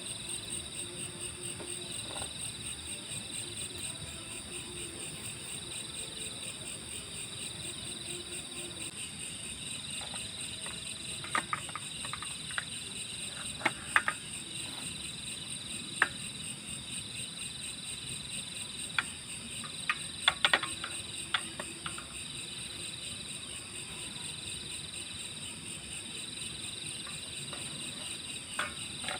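Steady chorus of crickets or similar night insects, a fast pulsing trill, with a scattering of sharp clicks or snaps through the middle stretch.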